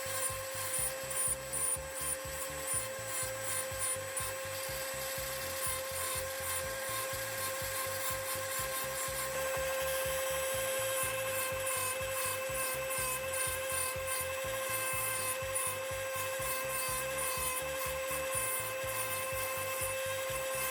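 Tool work on a laptop hinge: rubbing, scraping strokes about two a second for the first few seconds, over a steady high whine.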